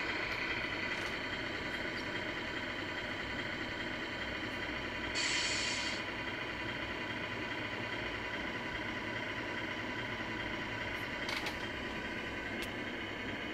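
RC truck sound unit playing a steady diesel-engine idle, with a short hiss about five seconds in and a faint click near the end.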